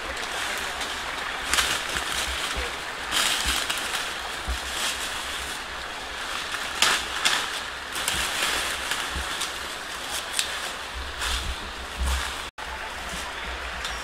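Footsteps crunching and rustling through dry leaf litter and brush, in irregular bursts over a steady hiss.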